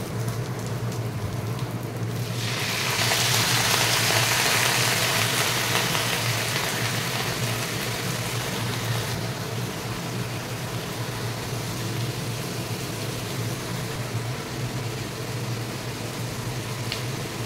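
Onions and green capsicum sizzling as they stir-fry in oil in a kadai. The sizzle grows louder about three seconds in, then eases off, over a steady low hum.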